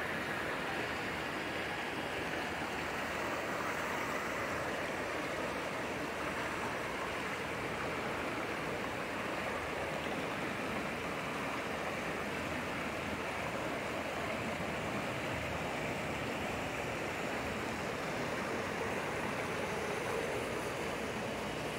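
Shallow mountain stream rushing over rocks, a steady rush of water.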